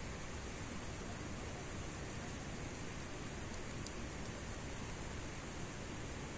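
Campfire burning with a steady hiss and a faint crackle or two, over a high, rapid, even pulsing.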